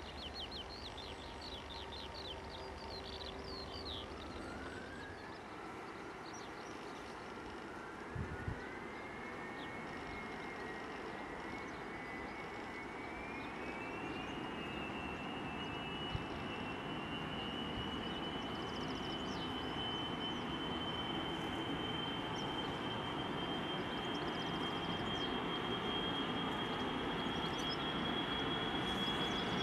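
Boeing 737-400's CFM56 turbofan engines spooling up for takeoff: a whine that climbs in steps over the first fifteen seconds, then holds high and steady while the engine noise slowly grows louder.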